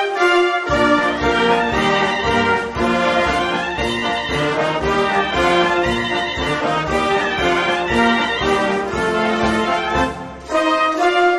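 Wind band playing a lively Maltese band march (marċ brijuż), the brass carrying the tune over a steady beat. The bass and drums drop out briefly at the start and again about ten seconds in.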